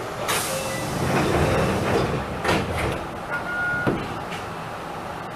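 Sliding doors of an Enshu Railway electric train closing at a station stop: a sudden hiss of air, a rush of door movement, then a few knocks as the doors shut, with a short beep just before they settle.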